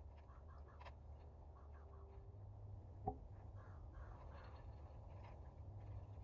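Faint outdoor ambience: a steady low rumble with faint scratching and rustling, and a single sharp click about three seconds in.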